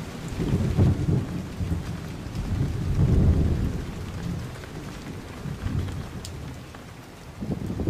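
Outdoor rain ambience: a faint steady hiss of rain with low rumbling swells that build and fade, strongest about a second in and again around three seconds in.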